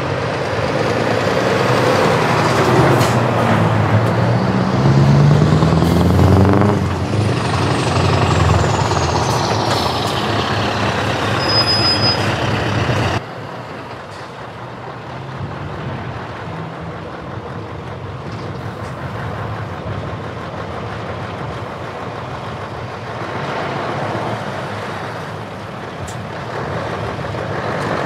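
Heavy Scania trucks driving past one after another, their diesel engines pulling hard with the engine note climbing in pitch, and a high whistle falling in pitch. About halfway through the sound cuts abruptly to a quieter, steady truck engine that grows louder again as the next truck comes by.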